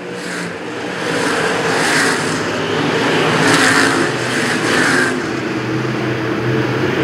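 A field of dirt-track stock cars racing at speed, their engines running hard under power as the pack passes. The sound builds from about a second in and swells a few times as the cars come through the turn.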